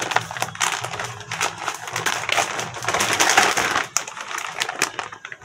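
Clear plastic packaging and a plastic shower curtain crinkling and rustling as they are handled, with a dense crackle that dies down about four seconds in.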